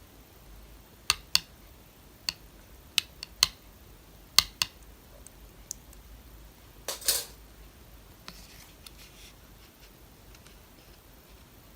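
Slime being handled: a series of sharp clicks and pops in the first few seconds, then a longer squishy burst about seven seconds in.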